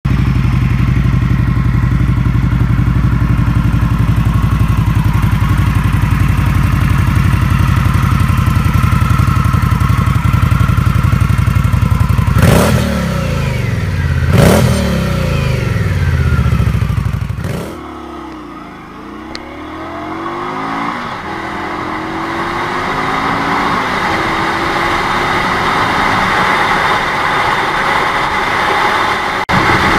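An Indian Scout's V-twin idling steadily through its chrome dual exhausts and blipped twice about halfway through. After a cut, a cruiser is ridden on a highway, its engine note rising as it accelerates, with wind noise.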